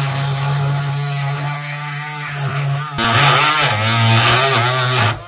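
Dremel Multi-Max oscillating multi-tool with a metal-cutting blade sawing through the round head of a metal pin: a steady, loud buzzing hum with a harsh grinding rasp over it. It dips briefly about three seconds in and stops near the end.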